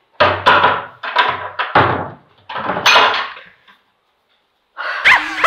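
Knocking on a wooden door by hand: a run of loud, sharp knocks over the first three seconds, each ringing briefly in the room. A person starts laughing near the end.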